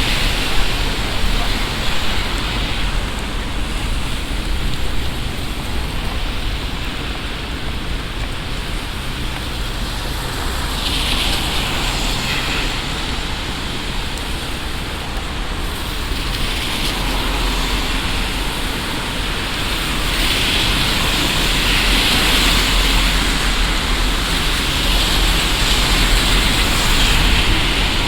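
Heavy summer downpour: a passing shower falling hard and steadily, with a low rumble underneath. The hiss swells a little a few times, most near the end.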